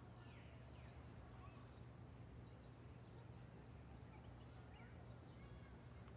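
Near silence: quiet room tone with a low steady hum and a few faint bird chirps.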